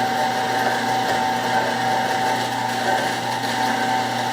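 Winch motor running steadily with a high, even whine, hoisting a field-harvested doe.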